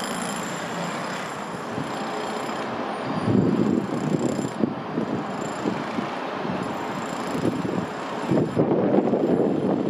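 A passenger train approaching, then, from about three seconds in, a TransPennine Express Class 185 diesel multiple unit running into the platform, louder and uneven.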